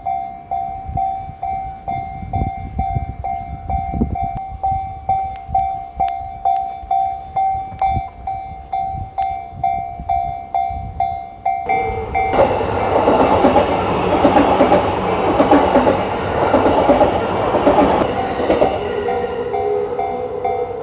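Japanese railway level-crossing alarm dinging in a rapid, steady repeated beat. About twelve seconds in, a train passes over the crossing with a loud rumble and clatter of wheels on rails for about seven seconds, while the alarm keeps ringing.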